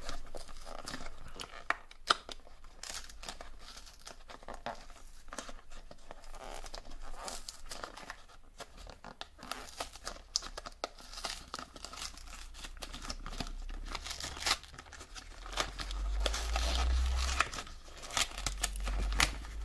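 Plastic shrink wrap being torn open and crinkled by hand while a boxed card deck is unwrapped, with a few sharp clicks and some handling bumps near the end.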